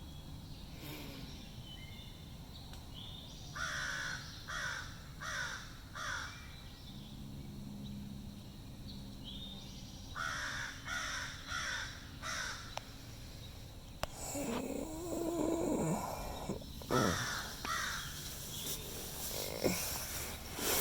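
Crows cawing in runs of several harsh calls with pauses between, the calls growing louder in the second half.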